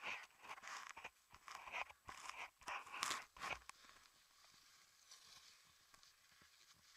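Irregular crunching and rustling close to the microphone from a gloved hand and ski jacket handling the camera. It lasts about three and a half seconds, then settles to faint noise.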